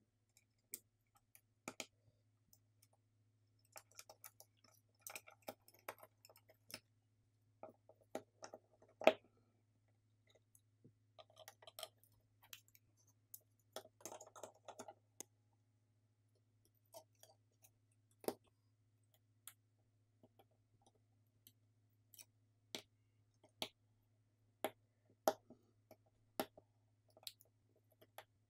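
Scattered small clicks, taps and brief rustles of parts being handled and fitted into a partly assembled smartphone: the motherboard set into the frame and flex-cable connectors pressed into place. There is a faint low hum underneath, and the sharpest click comes about nine seconds in.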